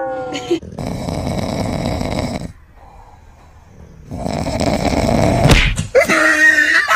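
A dog snoring in deep sleep: two long snores about three seconds apart, with a quiet breath between them.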